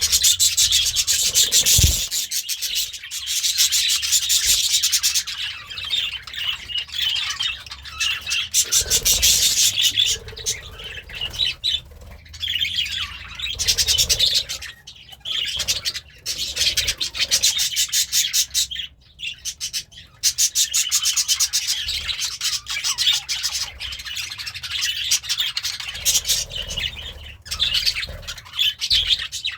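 Budgerigar warbling and chattering: long runs of very rapid, high, clicking notes broken by short pauses.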